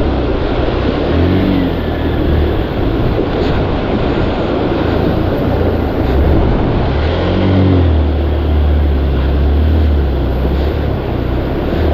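Motorcycle engine running in a low gear as the bike is ridden through a fast-flowing stream, with water rushing and splashing around it. The revs rise and fall about a second in and again at about seven and a half seconds.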